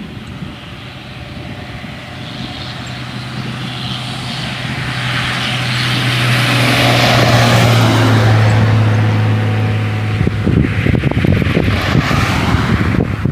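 A motor with a steady low hum, growing louder over about ten seconds and then cutting off suddenly, followed by rough, gusty noise.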